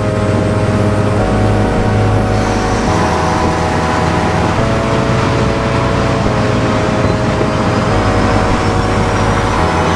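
Background music of held chords that change about every second and a half, with a bass line moving along with them, over a steady rushing noise.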